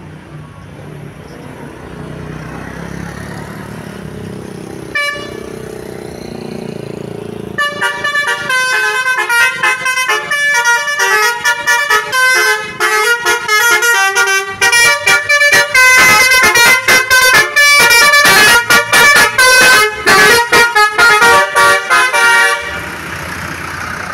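Basuri telolet bus horn playing a fast multi-note melody, starting about seven seconds in and stopping suddenly near the end, preceded by a vehicle engine running and one short toot about five seconds in.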